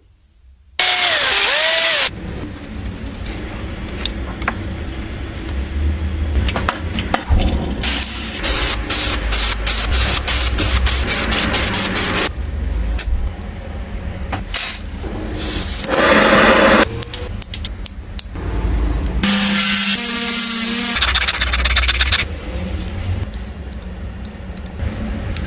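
Power tools and workshop work in a series of short clips that change abruptly every second or few seconds, with stretches of rapid clicking.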